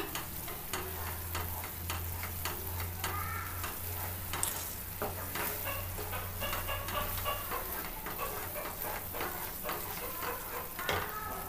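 Wooden spatula stirring thick ash gourd halwa in a black pan, with a steady sizzle of ghee and frequent small scraping clicks against the pan. The halwa is at its finished consistency, a thick mass that comes away from the pan without sticking.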